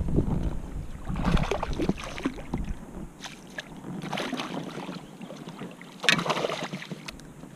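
Water splashing in short bursts as a hooked bass thrashes at the surface beside the kayak. The loudest splash comes about six seconds in, as the fish is scooped into a landing net. Wind rumbles on the microphone for the first second or so.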